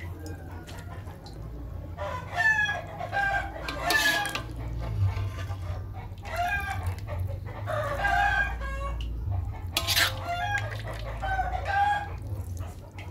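Chickens calling: a rooster crowing about three times, a few seconds apart.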